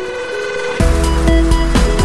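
Background music: sustained tones build up, then just under a second in a beat with deep bass and regular drum hits comes in.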